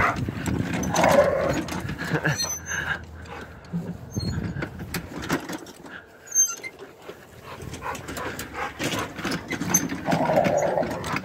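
A Rottweiler making excited dog noises as it goes after the rubber tire of a lawn cart, with short knocks and scuffs. The dog noises are louder about a second in and again near the end.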